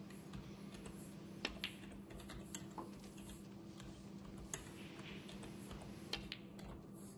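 Snooker balls clicking: a cue tip striking the cue ball and the cue ball knocking into another ball, heard as quick pairs of sharp clicks about a second and a half in and again near the end, with a few single clicks between, over a steady low hum.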